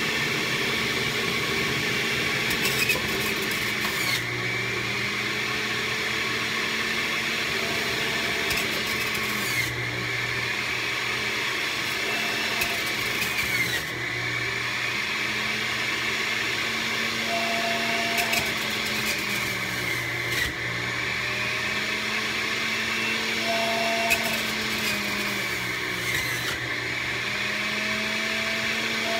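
Centrifugal juicer running, its motor pitch dipping and climbing back every few seconds as pineapple chunks are pressed down the feed chute with the pusher and the motor takes the load.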